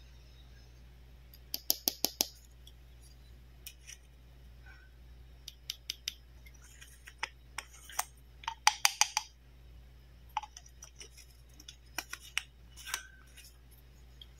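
Hard plastic cap of a toy medicine bottle being twisted and worked on its threads by hand, making sharp plastic clicks. There are quick runs of them about two seconds in and again around nine seconds, with scattered single clicks between and after.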